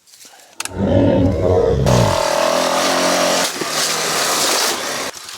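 Yamaha Wolverine 350 ATV's single-cylinder four-stroke engine revving hard, starting suddenly about half a second in, rising in pitch, then running on loudly until near the end.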